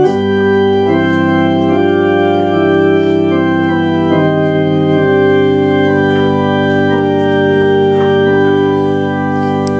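Church organ playing loud sustained chords that begin suddenly and move slowly from one chord to the next.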